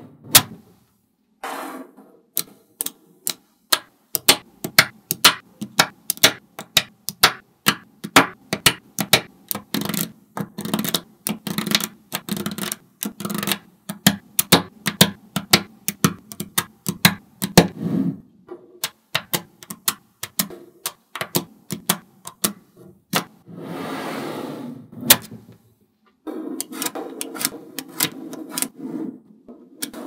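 Small neodymium magnet balls clicking as they snap together and onto a block of magnet balls: many quick, sharp clicks in irregular runs, thinning out about two-thirds of the way through. A brief softer rumble follows, then more clicking near the end.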